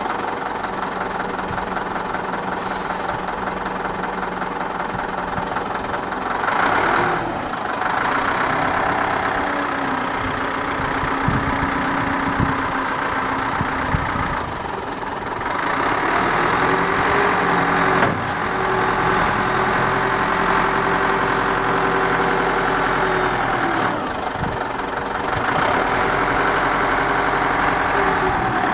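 Caterpillar 950E wheel loader's diesel engine running, its pitch shifting and the engine surging louder about three times.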